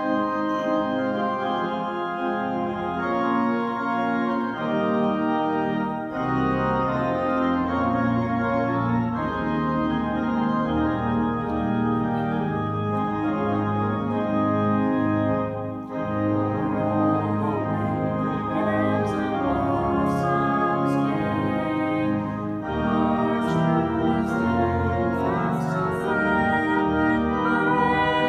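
Church organ playing a slow piece in sustained full chords, with a brief break between phrases about halfway through.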